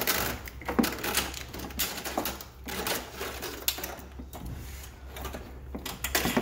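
Plastic retaining clips clicking and a wiring harness rattling and scraping against a plastic-and-steel truck bumper as the harness is pried and pulled free by hand, in irregular clicks and short rattles over a steady low hum.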